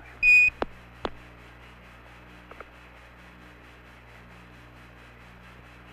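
A short high beep of a Quindar tone, the tone that marks the end of a Mission Control transmission on the Apollo air-to-ground radio loop. Two sharp radio clicks follow within the first second, then steady radio hiss with a low hum.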